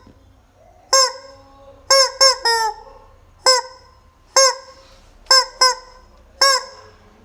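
Rubber chicken toy squeezed over and over, giving short, high, honking squawks about once a second, some in quick runs of two or three.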